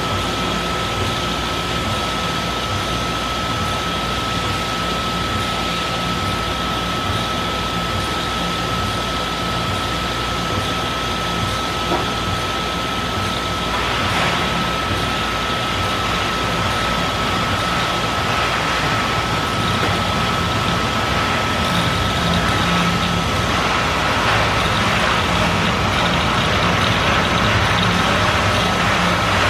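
Mitsubishi EA12E die-sink EDM running, its electrode submerged in the churning dielectric oil of the work tank: a steady machine hiss and hum with a constant high whine. It grows somewhat louder in the second half.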